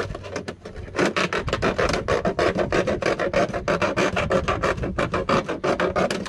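Serrated steak knife sawing through a plastic milk jug in quick back-and-forth strokes, a rapid rasping with a short pause just before a second in.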